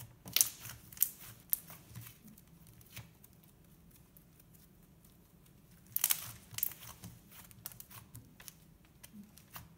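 Thick slime, softened with lotion, being squeezed and stretched by hand, giving off sharp crackling clicks and pops. The clicks come in a cluster at the start and again about six seconds in, with quieter handling between.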